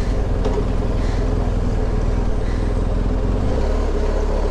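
BMW R1250GS motorcycle's boxer-twin engine running steadily, its low note shifting slightly about three and a half seconds in.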